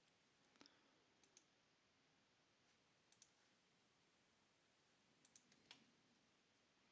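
Near silence with a few faint computer mouse clicks, some in quick pairs like double-clicks.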